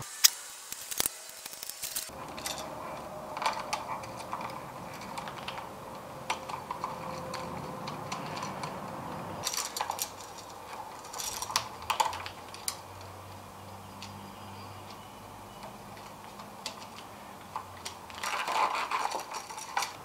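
Light metallic clicks and taps of pliers and a screwdriver on solid copper wire and the terminal screws of a three-way toggle switch as the wires are hooked on and tightened. The clicks come scattered, with denser bursts about ten and twelve seconds in and again near the end.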